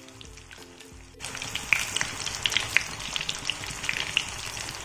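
Breaded chicken sticks deep-frying in hot oil: a dense sizzle with frequent sharp crackles and pops. The sizzle starts abruptly, about a second in.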